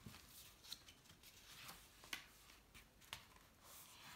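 Near silence with a few faint rustles and soft ticks of a hardcover picture book's paper pages being handled and turned.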